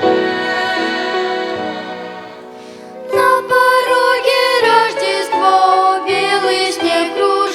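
Christmas song with a children's violin ensemble: held string chords fade out, and about three seconds in singing starts with wavering vibrato over the accompaniment.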